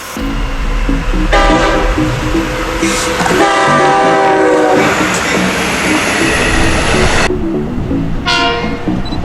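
Long Island Rail Road train sounding its multi-chime horn: a blast about a second in, a longer one around three and a half seconds in, and a short one near the end. Under the horn runs the steady rumble and wheel clatter of the train on the rails.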